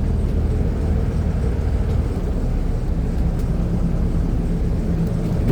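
Water taxi's inboard engine running steadily, a low drone.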